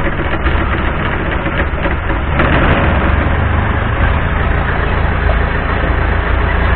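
Long-tail boat engine running steadily close by, growing louder about two and a half seconds in.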